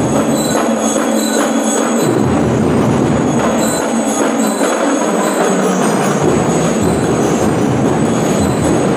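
Festival drum-band music: dense, continuous drumming with some high ringing notes. The deep bass drums come in about two seconds in, drop out briefly near the middle, and come back past six seconds.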